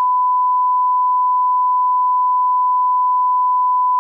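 Steady 1 kHz line-up test tone, a single unchanging pure beep, played with the SMPTE colour bars at the head of a broadcast tape.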